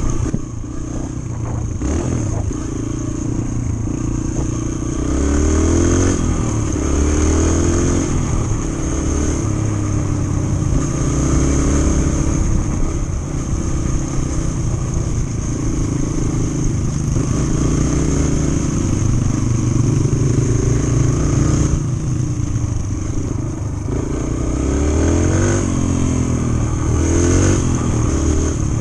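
A dirt bike's engine heard from on board as it rides along. Its revs climb and drop again several times as the rider shifts gears.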